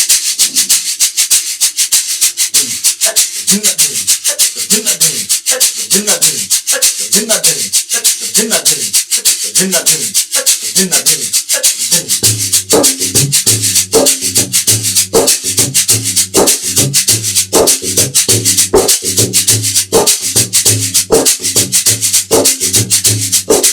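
LP shaker played in a fast, even rhythm of rasping strokes. Low bayan (tabla bass drum) strokes with gliding pitch sound under it, and from about halfway a steady low pitched bass pattern on the beat joins in.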